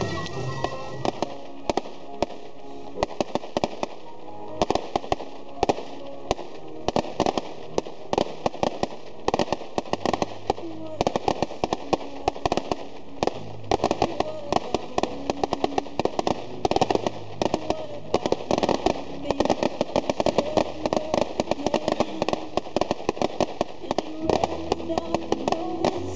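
Ground firework fountains spraying sparks, with rapid crackling pops several times a second, over music and voices.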